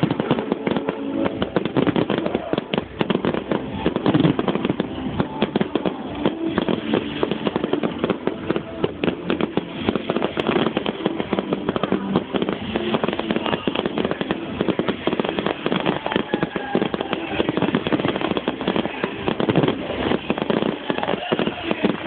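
Fireworks display in full swing: a dense, continuous barrage of bangs and crackling bursts with no let-up.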